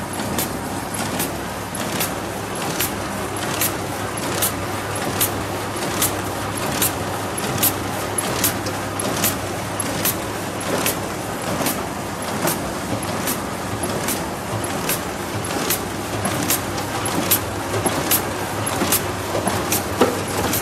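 Plastic curved chicken-bag making machine running: a steady mechanical noise with a sharp, regular click about every 0.8 seconds as it cycles.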